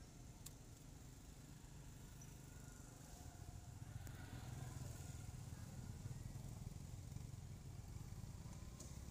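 Faint outdoor background: a low steady rumble that grows a little louder about four seconds in, with a few faint clicks near the start.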